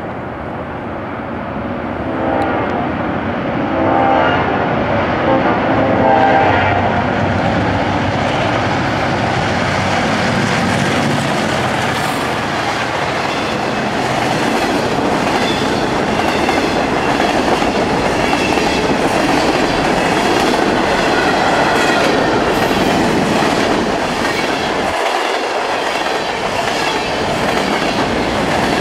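New York & Atlantic diesel freight train, an MP15AC and a GP38-2, passing close. The locomotive horn sounds in a few blasts during the first six seconds or so. Then the engines go by and the freight cars roll past with a steady rumble and a clickety-clack of wheels over the rail joints.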